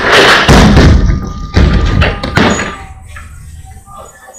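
Large plywood shipping crate dropped from a forklift, crashing onto concrete: a loud crash and several heavy wooden thuds over the first two and a half seconds as it lands and settles, then quieter.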